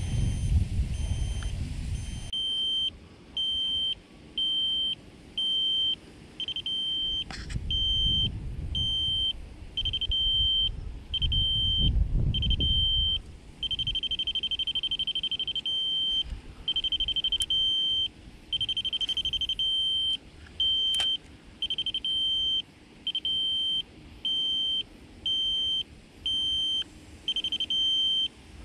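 Fish finder's alarm beeping: one high electronic tone in a run of short beeps of uneven length, starting a couple of seconds in, with a longer beep midway and another at the end. Low gusts of wind rumble on the microphone underneath.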